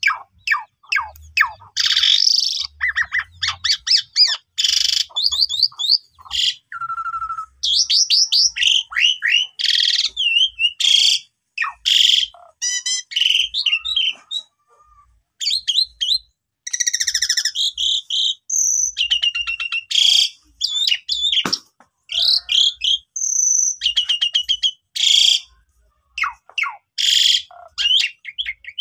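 Javan pied starling (jalak suren) singing a long, varied song of rapid chattering notes, fast stuttering trills and clear whistles, with harsh squawky notes mixed in and two short breaks.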